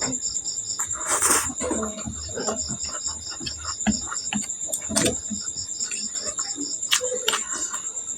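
Close-up eating sounds: chewing and mouth clicks, with a short slurp about a second in. Behind them a cricket chirps steadily in rapid, even pulses.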